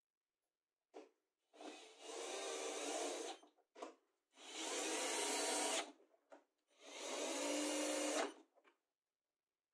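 Cordless 20 V drill-driver running in three bursts of about one and a half to two seconds each, driving screws into the jointer fence. A few short clicks come between the bursts.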